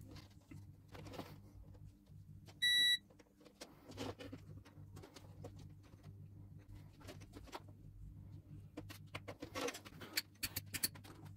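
Faint rustling, clicks and taps of thin hook-up wires being handled and twisted together by hand, busiest near the end, over a low steady hum. A short electronic beep sounds once, about two and a half seconds in.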